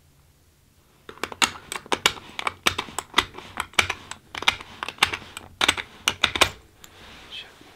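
Rounds of .223 ammunition pressed one after another into a polymer PMag rifle magazine: a rapid run of sharp plastic-and-metal clicks lasting about five seconds, beginning about a second in.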